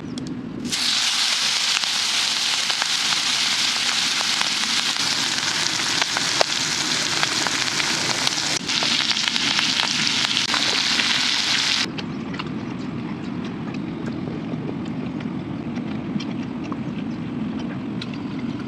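Chicken frying on a hot tawa, a loud steady sizzle starting about a second in. The sizzle cuts off suddenly about twelve seconds in, leaving a quieter, lower rumbling noise with faint crackles.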